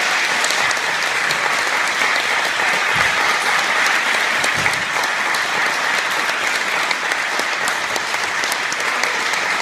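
Audience applauding, a steady dense clapping that keeps an even level without letting up.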